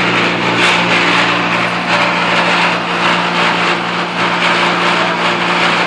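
Pentair UltraTemp pool heat pump running with a steady hum under a loud, harsh grinding noise that surges irregularly. The noise comes from low in the unit, and its cause is unknown to the owner.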